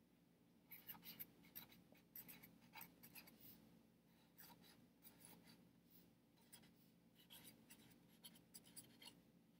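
Faint marker tip scratching on paper on a clipboard, writing a line of words in quick, short strokes, starting about a second in.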